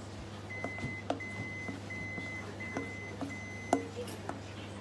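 An electronic kitchen appliance beeps five times, even high beeps of about half a second each. Around them a silicone spatula scrapes and knocks against metal, with one sharper knock near the end.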